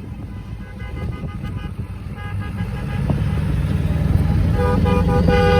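Car horns honking over traffic noise: a few faint toots in the first half, then a louder horn held for about a second near the end. Low engine and traffic rumble grows louder about halfway through.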